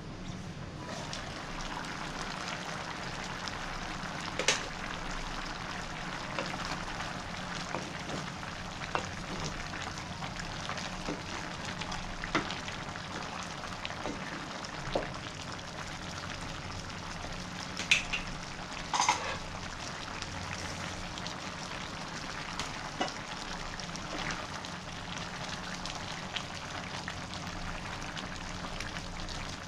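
Curry stew simmering in a frying pan, a steady sizzle with small popping bubbles, while a wooden spatula stirs it. There are a few sharp knocks against the pan, the loudest about four seconds in and two more close together past the middle.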